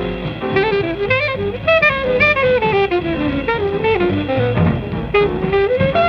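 Bebop played live by a jazz quintet of alto saxophone, trumpet, piano, bass and drums: a lead horn plays quick runs of short notes over bass and drums.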